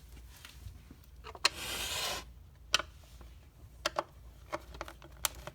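Hand screwdriver tightening the holders on the back of a radiator cover: a few scattered clicks and taps, with a short scraping rub about a second and a half in.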